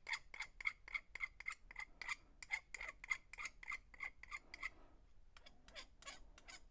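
Metal hand file scraping a freshly poured lead jig head to file down the sprue, in quick even strokes about four a second with a light ringing note. The strokes break off about four and a half seconds in, then come back fewer and further apart.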